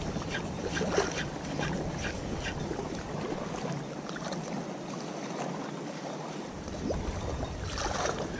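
Gusty wind rumbling on the microphone over the noise of open water. The rumble drops out about halfway through and comes back, with a few light ticks early on.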